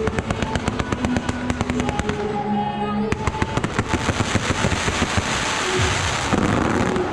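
A fireworks barrage: a rapid, continuous string of bangs and crackles, several a second, thinning out near the end. Music plays underneath.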